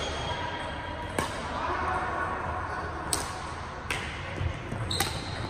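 Badminton rackets striking a shuttlecock in a rally: four sharp hits, irregularly spaced, about a second or two apart.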